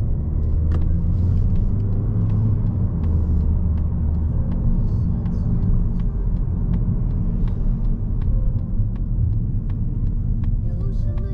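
2022 Mazda3 hatchback with its 2.0-litre SKYACTIV-G petrol engine driving along a city road: a steady low rumble of engine and tyres, with frequent small sharp clicks over it.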